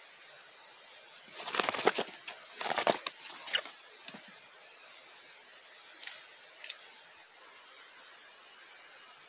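Handling noise of rustling and clattering, in two loud bursts about a second and a half and three seconds in, then a few faint clicks, as corn cobs are set on a wire grill and the camera is moved close. A steady high hiss underneath.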